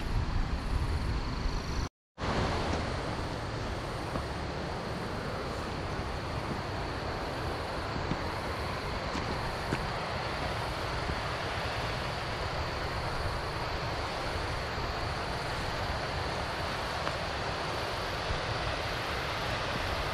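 Steady rush of flowing water, even and unbroken, after a brief dropout about two seconds in.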